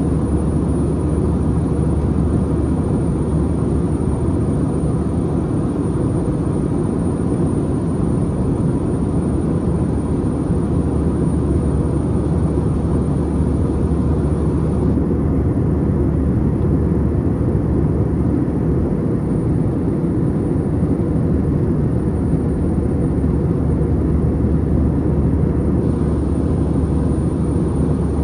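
Steady cabin noise of an Airbus A319 in flight, heard from a window seat: the jet engines and the air rushing past the fuselage make a dense, even low rumble.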